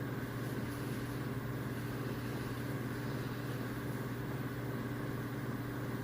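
Steady low hum with faint hiss, unchanging throughout.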